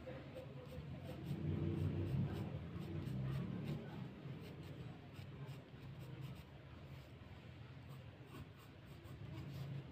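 Graphite pencil scratching across sketch paper in quick drawing strokes, louder for a couple of seconds soon after the start, then lighter.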